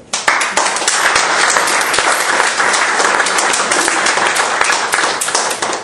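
Small audience applauding, starting suddenly and dying away near the end.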